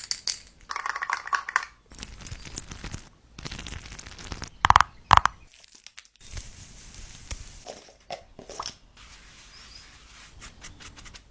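Close-up handling sounds of makeup items: crinkling, rustling and scraping noises, with two loud sharp clicks a little under halfway through, about half a second apart.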